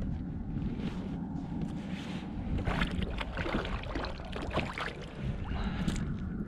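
Wind rumbling on the microphone aboard a plastic fishing kayak at sea. Short clicks and knocks of things handled on the hull come and go, thickest around the middle.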